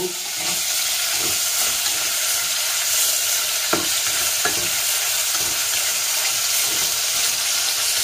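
Beef cubes sizzling steadily in hot oil in a stainless steel pot while being stirred with a wooden spoon, seared to brown and caramelize them. Two sharp clicks come about halfway through.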